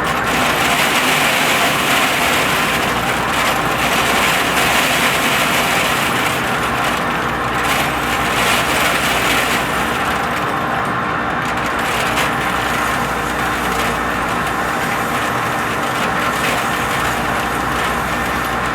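Metal lathe running steadily, turning a large part that is close to too big for the machine, with a constant machine hum and a hiss that swells and fades.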